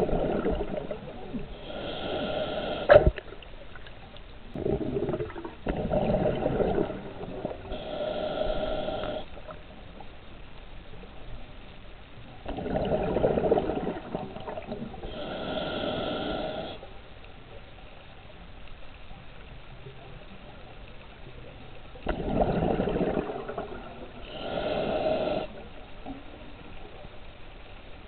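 A diver's slow breathing underwater, heard through the camera housing: four breaths, each in two parts, a deeper rush and then a ringing hiss, with a longer pause before the last. A sharp knock about three seconds in.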